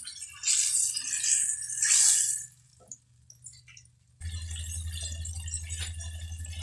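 Hot oil in a wok sizzling in two short bursts as battered banana pieces fry, then dying down. About four seconds in, a steady low hum starts.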